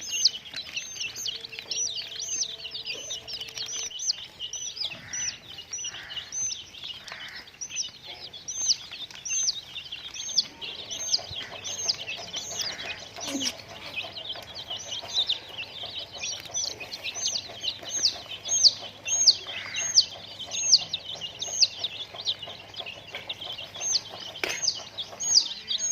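A crowd of young chicks peeping without pause: high, quick calls that each drop in pitch, several a second, overlapping.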